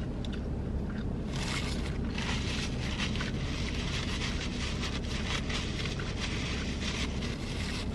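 Close-miked closed-mouth chewing of a bite of steak and cheese sub, a soft crackly sound from about a second and a half in, over a steady low hum in the car's cabin.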